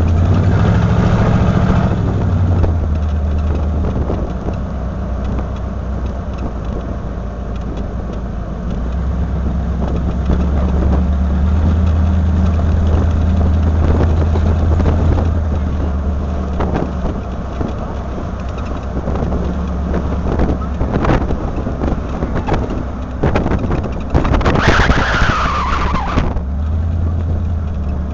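Engine of a slow-moving road vehicle, heard from on board in town traffic: a steady low hum that swells and eases as it pulls away and slows. A brief falling squeal comes near the end.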